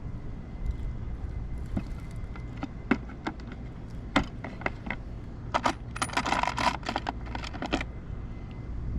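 Small metal tools clinking and clattering: scattered single clinks, then a quick dense run of rattling clinks near the end.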